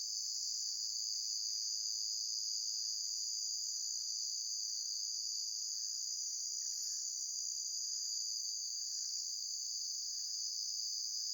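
A steady, high-pitched chorus of crickets at dusk. Underneath it, faint lower calls repeat roughly once a second.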